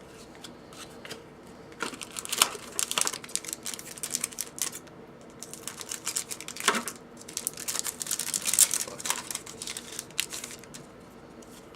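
Trading cards being handled: a run of light clicks, slides and rustles of cards against one another and against their wrapping, heaviest in the middle.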